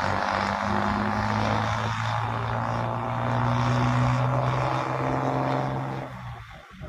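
Old Mercedes-Benz truck's diesel engine rumbling loudly in a steady drone that swells slightly in the middle, then drops away abruptly near the end.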